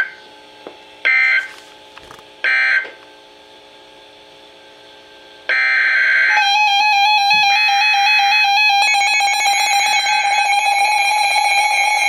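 NOAA weather alert radios, among them Midland units: three short bursts of warbling digital data tones, the EAS/SAME end-of-message code closing the broadcast. About five and a half seconds in, another data burst comes, and then several radios sound their alert alarms at once, a dense mix of overlapping beeping and steady tones.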